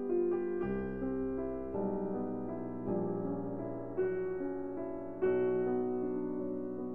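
Background music: a soft piano piece, notes struck one after another with sustained chords.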